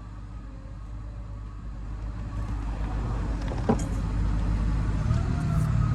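Fifth-wheel trailer's powered landing gear running with a steady low drone that grows gradually louder as it raises the front of the trailer, with a single sharp creak or knock about three and a half seconds in. The creak comes from the frame flexing during a check for front frame flex and cracked I-beams.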